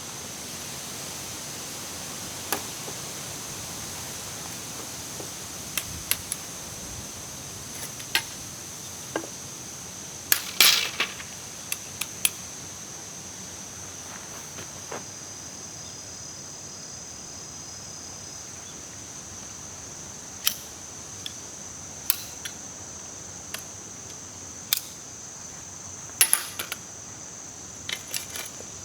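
Scattered sharp clicks and knocks from camping gear being handled while a tent is pitched, about fifteen over the stretch with small clusters, over a steady high-pitched hiss.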